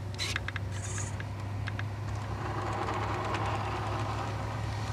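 Radio-controlled scale crawler's electric motor and gearbox whirring under a steady low hum as it crawls over dirt, with a few sharp clicks in the first two seconds; the whirr swells in the middle.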